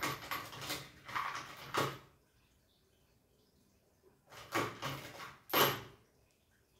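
Hand tools being rummaged through: two stretches of clattering and scraping, about two seconds apart, with quiet between.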